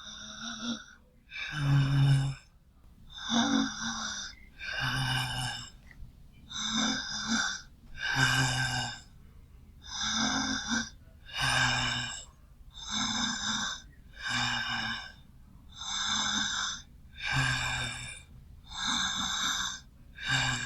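A girl breathing deeply and audibly, with slow, regular breaths about every one and a half seconds, each carrying a slight throaty voice.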